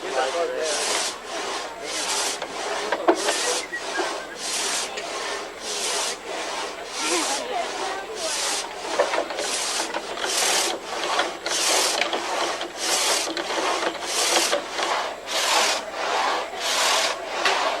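Hand tool working wood in regular strokes, nearly two a second, steady throughout.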